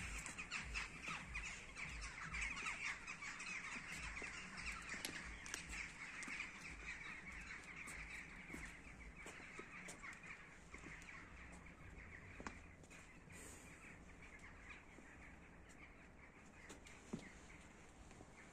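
A flock of birds calling and chattering, a dense chorus that grows fainter toward the end, with a few faint clicks and one sharper click near the end.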